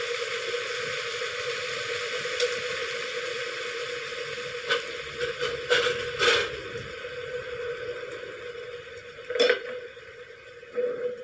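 Chaya greens and fried sun-dried fish sizzling in a stone-coated wok as they are stir-fried, with a few sharp scrapes and knocks of the utensil against the pan. The sizzle dies down near the end.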